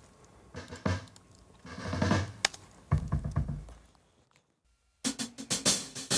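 Drum kit played sparsely: scattered single hits and a few low booming drum strokes, a silent gap about four seconds in, then a quick run of hits leading into full playing at the end.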